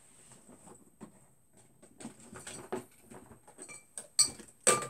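Small objects being handled and moved about on a workbench: faint scattered clicks, taps and scrapes, with two sharper knocks near the end.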